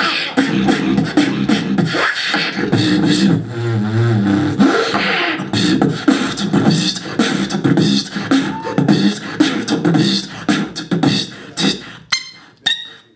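Live vocal beatboxing through a handheld microphone and PA: a dense, rhythmic run of mouth-made kick and snare sounds mixed with bass tones. There is a warbling pitched passage about four seconds in, and a few sharp clicks near the end as the routine thins out.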